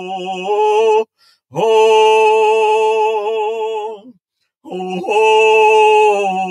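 A voice singing a slow chant in long held, slightly wavering notes: a Shaker song sung in three phrases, with short breaks for breath about a second in and about four seconds in.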